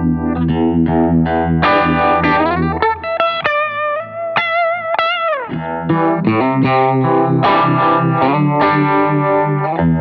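Electric guitar played through a Fulltone Mini Deja Vibe, a Uni-Vibe-style pedal, and a Line 6 HX Stomp. It plays strummed chords, then about three seconds in a few held single notes that bend and waver, sliding down about five seconds in before the chords return.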